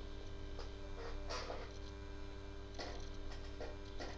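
Stiff printed card being handled and folded into a poster cube, with short crinkles and rustles every second or so, over a steady electrical hum.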